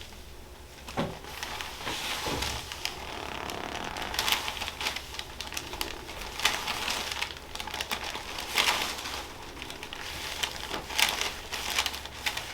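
Paper cover on a chiropractic table crinkling and rustling as the patient is shifted and handled, with many small irregular crackles and clicks.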